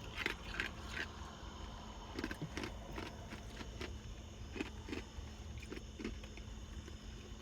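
Close-up mouth sounds of someone eating a sandwich: irregular small wet clicks and crunches of chewing.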